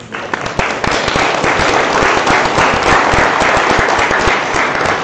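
Audience applauding: many people clapping at once.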